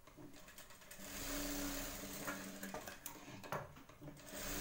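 Electric sewing machine stitching a seam in a steady run, with a few sharp clicks; it stops briefly a little past three seconds in and starts sewing again near the end.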